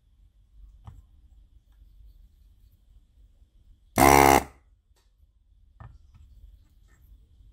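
One loud electronic buzzer beep lasting about half a second, about four seconds in, with a couple of faint clicks before and after it.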